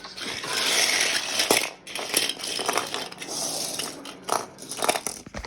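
A long crunching, clattering crash of a derailing train and its trucks smashing together, with irregular sharp knocks throughout and one last heavy knock at the end.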